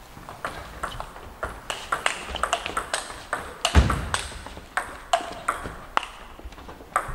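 Table tennis rally: the ball clicking sharply off bats and table several times a second, with one heavy thump about halfway through.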